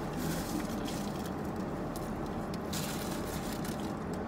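Paper fast-food wrappers and food being handled, rustling and crinkling in two main bursts, over a steady low car-cabin hum.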